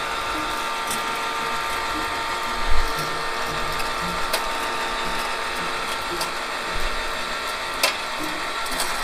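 Electric wire-rope hoist running steadily under load, its motor and gearing whining as it lifts a generator. A few sharp knocks come along the way, and it stops right at the end.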